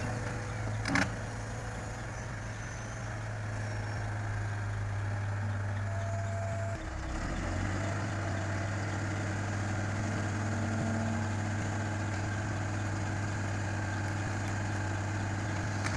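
Diesel engine of heavy construction machinery running steadily, with a single clank about a second in and a brief dip and change in the engine note about seven seconds in.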